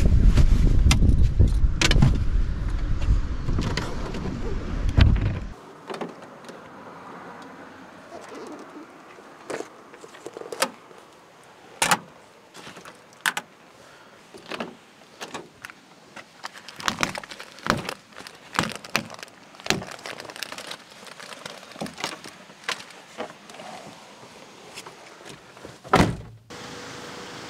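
Packing gear into a kei truck camper: a loud low rumble for the first five seconds or so, then a string of scattered clicks, knocks and rattles as things are stowed and latches and doors are handled, with one louder knock near the end.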